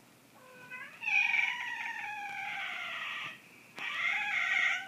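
Domestic cat yowling: one long drawn-out yowl that sinks slightly in pitch, then a shorter second yowl near the end. It is the warning yowl of a cat that another cat is grabbing and mounting.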